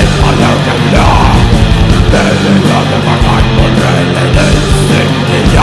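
Death metal recording: heavily distorted electric guitars over drums, with stretches of very rapid kick-drum beats that start and stop.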